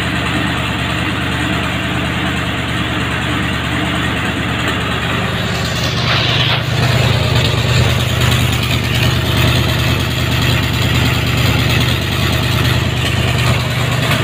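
Leyland P76 4.4-litre V8 idling steadily on a test stand, fed by twin Zenith-Stromberg CD carburettors and exhausting through Harley mufflers. It is freshly rebuilt and only roughly tuned, running slightly lean, which the owner puts down to the wrong carburettor needles. The note grows louder from about six seconds in.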